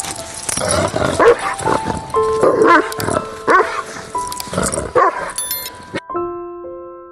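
A dog barking several times over light background music; the barking stops about six seconds in and only soft, sustained piano-like music continues.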